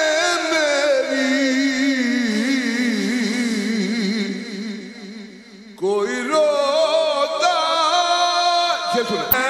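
An elderly man singing a naat, an Urdu devotional poem, solo in long drawn-out notes with wavering, ornamented turns. The phrase fades away about five seconds in, and a new one starts about a second later.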